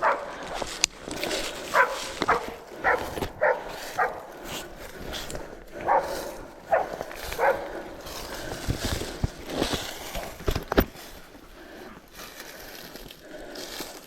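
Deer-tracking dog barking repeatedly in short barks, one or two a second. A few low thumps come partway through.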